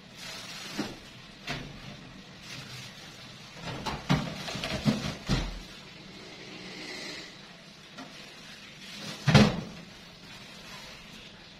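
Knocks and clunks of stored things being shifted about on a high storage shelf. A few single knocks come early, then a cluster of them about four to five seconds in, and the loudest thud a little after nine seconds.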